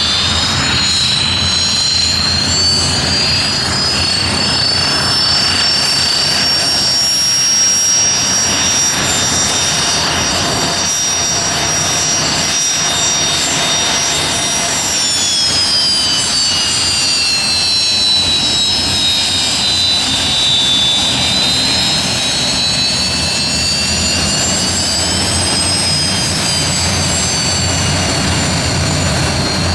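English Electric Canberra's twin Rolls-Royce Avon turbojets running as the aircraft taxis, a loud roar with a high whine. The whine climbs in pitch over the first few seconds, drops around the middle and climbs again near the end.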